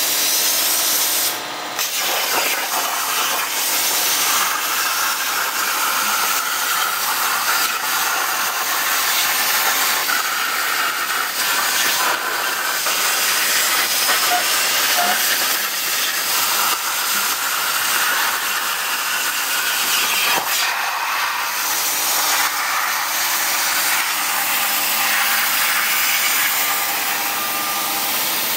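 Hypertherm Powermax plasma torch on a CNC table cutting metal plate: a steady, loud hissing rush of the plasma arc and air. There is a brief break about a second and a half in before it carries on.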